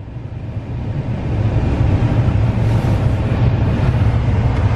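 Car engine running at idle, heard from inside the cabin: a steady low rumble with a noisy hiss above it that grows louder about a second in.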